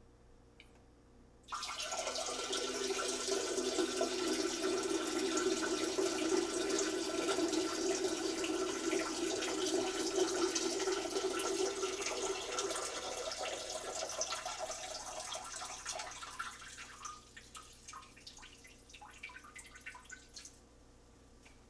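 A person urinating, the stream splashing into water. It starts suddenly and runs as a steady stream, then weakens and breaks into separate dribbles and drips before stopping near the end.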